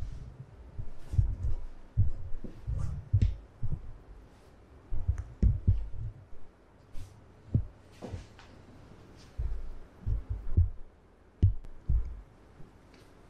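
Soft, irregular low thumps and rustling of cloth and bodies shifting on a floor mattress as a client's leg is pressed and stretched during a Thai massage, with a few faint clicks.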